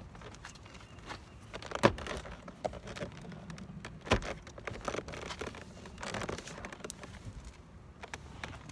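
Plastic interior door trim around the mirror mount being handled and pressed into place: rustling and scraping of plastic, with two sharp knocks, one about two seconds in and a louder one just past four seconds, and smaller clicks between.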